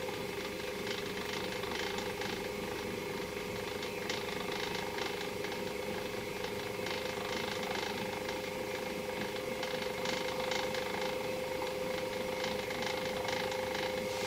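Small electric motor of a rotating display stand running steadily: a constant hum with faint, irregular ticking over it.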